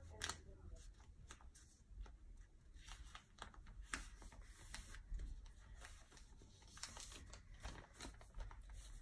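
Faint, irregular crinkling and crackling of a sheet of paper being folded and creased by hand into a paper airplane.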